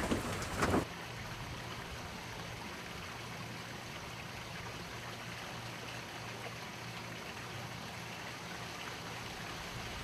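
A man's voice briefly at the start, then after an abrupt change a steady, even rushing noise with a faint low hum.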